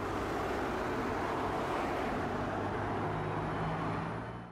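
Road traffic on a city street: a steady noise of cars driving by, with a low engine hum that grows in the second half as a vehicle comes closer.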